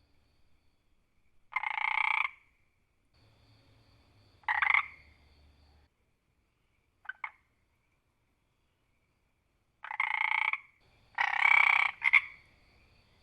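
A frog croaking in separate calls a few seconds apart: about five full croaks and a short clipped double note near the middle, the last two croaks coming close together.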